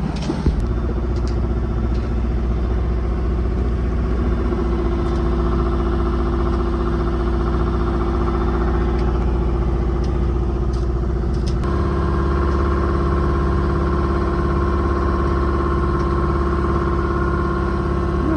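Small yacht's auxiliary engine running steadily under way. Its note changes and gets louder partway through.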